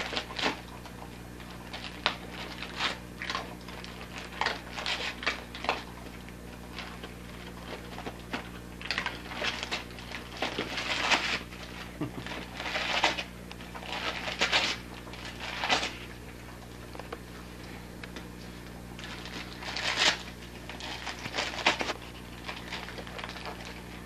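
Wrapping paper crinkling and tearing in irregular bursts as a Labrador chews and paws open a wrapped gift, over a steady low hum.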